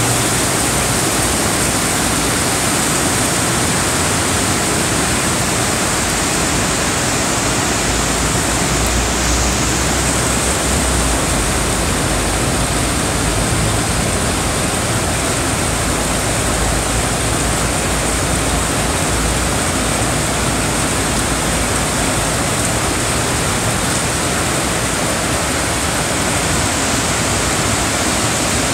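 Heavy tropical rain pouring steadily over the city, a dense, even hiss with no let-up.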